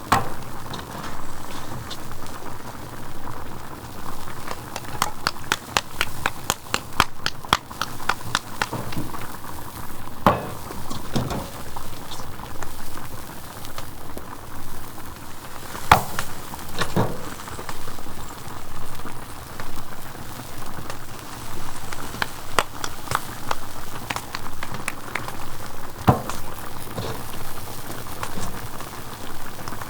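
Food bubbling and sizzling in a cooking pot, with many sharp crackles and clicks and a few louder knocks.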